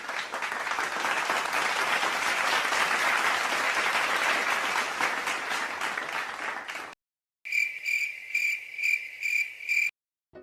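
Crowd applause that stops at about seven seconds, then after a short gap a cricket chirping: a steady high pulsing trill of a few chirps a second.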